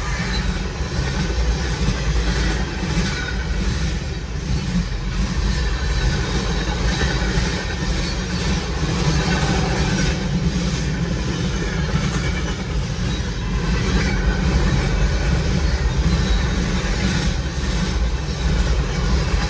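CSX freight train rolling past, its wheels running on the rails with a steady, loud noise and some clatter throughout.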